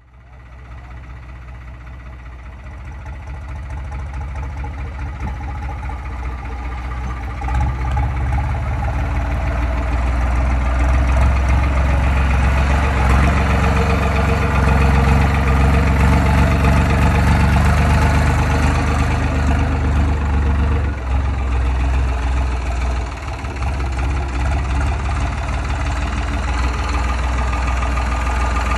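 Modified New Holland 3630 tractor's diesel engine running steadily, growing louder over the first dozen seconds, with a brief dip a little past the twenty-second mark.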